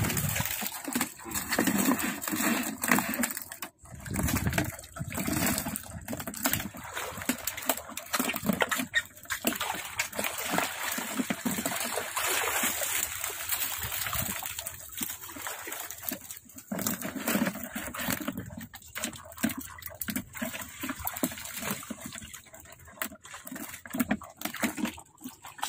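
Shallow water splashing and sloshing irregularly as a person wades through it and drags a hand landing net to scoop fish.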